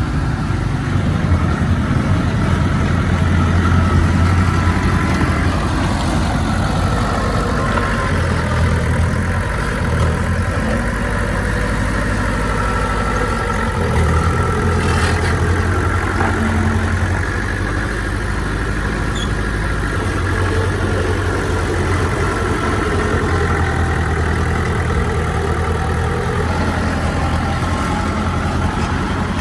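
Heavy diesel engine of earthmoving machinery running steadily under work, with a strong low hum and little change in pitch.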